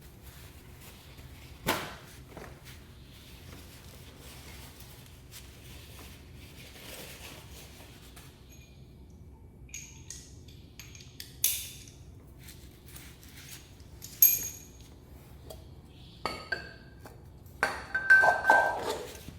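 Metal tools or parts being handled and set down: a few separate sharp clinks, some with a short high ring, then a quick run of clattering near the end.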